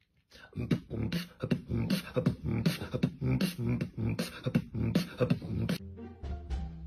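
Beatboxing: a quick, steady beat of sharp hissing and clicking mouth-percussion hits with pitched hummed sounds between them. It stops about six seconds in, where background music takes over.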